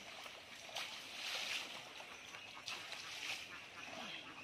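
Pond water sloshing and splashing as men wade through it hauling in a long drag net, in uneven swells rather than sharp single splashes.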